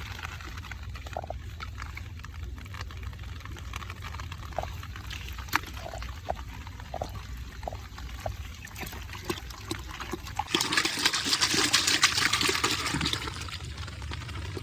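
Water splashing and dribbling, with scattered small clicks; about ten seconds in, a louder stretch of splashing lasts about three seconds.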